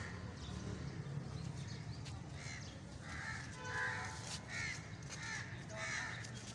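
Birds calling: a quick series of short calls in the second half, over a low steady hum.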